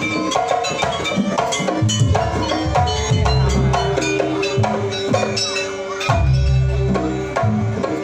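Live percussion-led music accompanying a jaranan dance: quick drum and struck-percussion strokes over sustained tones, with two deep low notes about three seconds in and about six seconds in.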